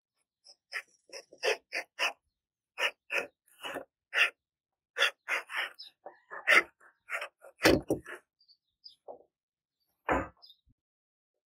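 Irregular knocks and taps as strips of film-faced plywood and a metal caliper are handled on a wooden workbench, with two heavier thuds, one a little past halfway and one near the end.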